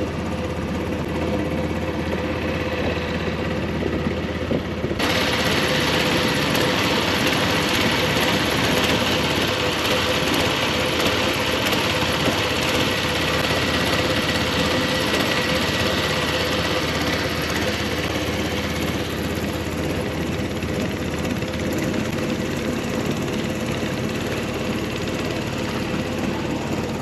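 Boat engine running steadily with a constant drone. About five seconds in, a brighter hiss suddenly grows louder over it.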